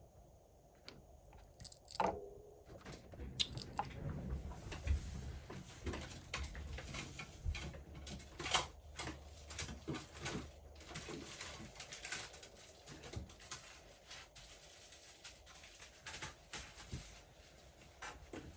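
Irregular small clicks, taps and rustles from hands and small tools handling a phone battery cell and its plastic and tape parts, over a faint low hum.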